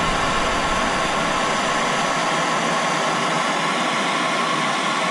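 Handheld mini gas torch burning with a steady hiss as its flame heats the exhaust flange bolts at the catalytic converter, so that they come loose without snapping.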